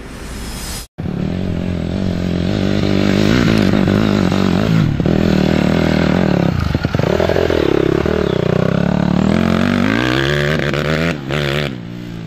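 Off-road dirt bike engine running and revving, its pitch rising and falling as the rider works the throttle over rough ground. The sound starts after a brief cut about a second in.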